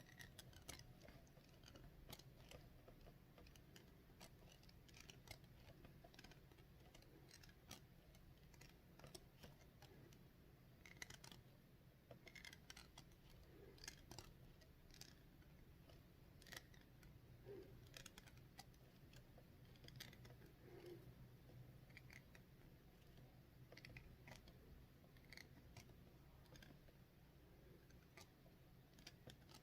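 Near silence broken by faint, irregular short clicks, a twisted cotton thread snapping as it rolls across the upper lip and plucks out hairs.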